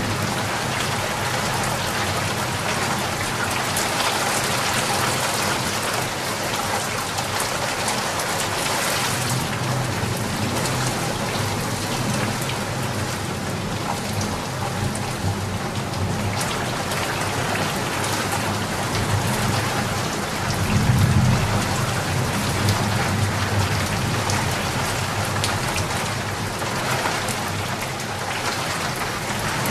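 Steady heavy rain falling, an even hiss of drops. About two thirds of the way through, a low rumble of thunder swells briefly.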